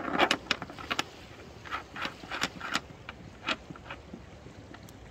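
Rusty anchor chain clanking over a boat's electric anchor windlass during a short test run: a string of irregular sharp metallic clinks and knocks that stops about three and a half seconds in.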